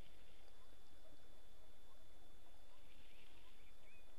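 Outdoor riverbank ambience: scattered short bird chirps over a steady low rumble of wind on the microphone.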